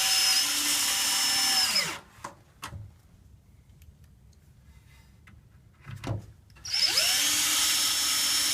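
Cordless driver driving screws into wood: the motor spins up with a rising whine, runs steadily for about two seconds and winds down. After a pause with a few knocks, it drives a second screw near the end.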